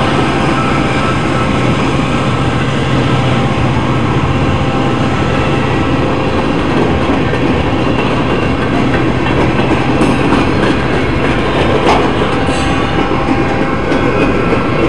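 Freight train passing through a road grade crossing, its cars rolling by in a loud, steady rumble, with a few short sharp high sounds near the end.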